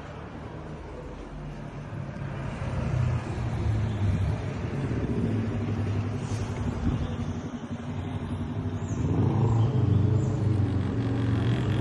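Motor vehicle engine rumble, a steady low hum that grows louder about two seconds in and again near the end.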